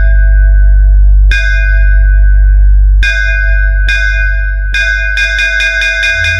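Bass-boosted electronic DJ track: a deep, steady sub-bass under a bell-like synth melody struck in a rhythm. The strikes quicken into a rapid roll about five seconds in, and a falling bass sweep comes right at the end.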